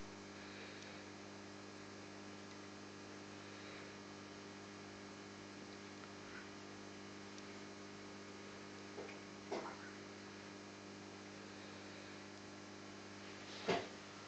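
Steady low electrical hum, with a couple of faint knocks about nine and a half seconds in and a sharper, louder knock near the end.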